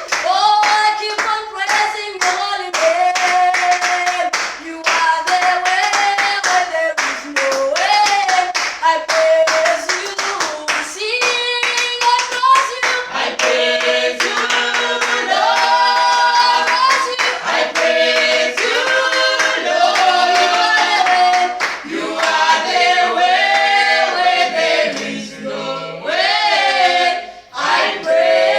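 A praise team singing a gospel praise song in several-part harmony, with steady rhythmic hand clapping that is clearest in the first half.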